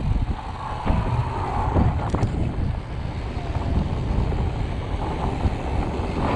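Wind buffeting the microphone of a camera on a moving mountain bike: a steady low rumble of wind noise while riding, with a few brief clicks about two seconds in.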